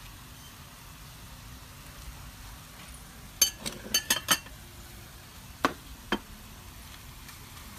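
Hard objects clinking together: a quick run of about five sharp clinks about three and a half seconds in, then two more a little later.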